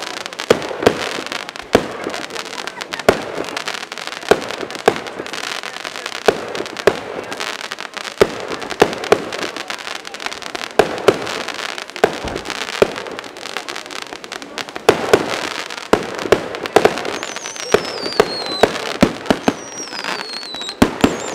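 Repeated sharp bangs about once a second at uneven intervals, like firecrackers, over a steady crackling haze. Near the end there are a few high falling whistles.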